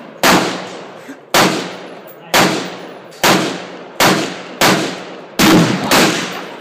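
Eight gunshots in quick succession, roughly one a second and a little faster near the end, each with a long echoing tail.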